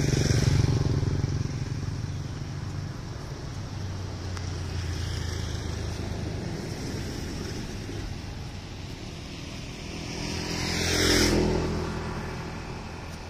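Motor vehicles driving past on the road, their engines humming: one passes just as it begins and another swells up and fades away about eleven seconds in.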